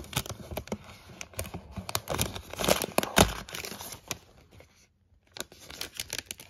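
Clear protective plastic film being peeled off the iMac's aluminium stand and crinkling in the hand: a dense run of crackles, loudest about three seconds in, a short pause, then more crinkling near the end.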